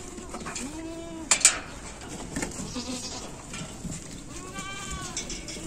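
Goats bleating in a pen: a lower bleat about half a second in and a higher one near the end. A couple of sharp knocks about a second and a half in are the loudest sound.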